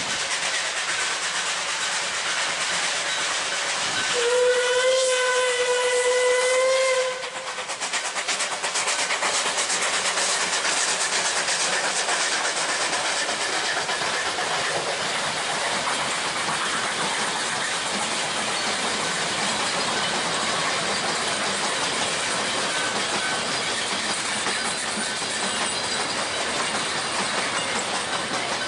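Narrow-gauge NA class 2-6-2T steam locomotive 12A sounds its steam whistle once, a single steady note of about three seconds starting about four seconds in. Its train of wooden carriages then rolls past with steady wheel-on-rail noise.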